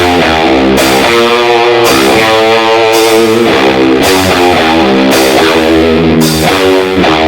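Loud rock music led by electric guitar, with blocks of chords changing about every second.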